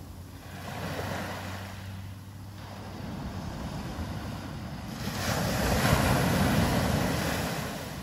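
Small waves breaking and washing up a sandy beach: a light wash about a second in, then a bigger, louder wash of surf about five seconds in that fades near the end. Wind on the microphone adds a steady low rumble.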